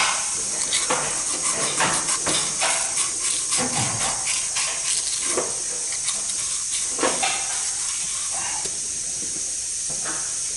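Small clicks and scrapes of hand work on metal parts in a transmission's axle bore, densest in the first half and sparser toward the end, over a steady high hiss.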